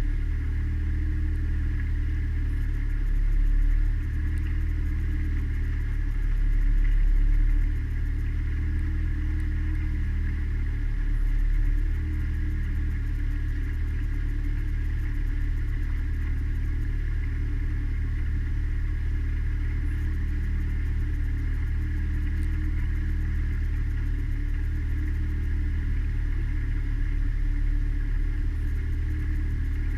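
Mariner outboard motor running steadily at cruising speed: an even low engine drone with a fainter higher whine. It swells louder briefly a few times in the first dozen seconds.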